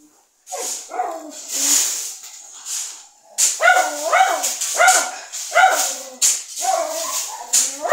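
Dog barking repeatedly, about one and a half barks a second, starting about three and a half seconds in, after higher wavering yelps.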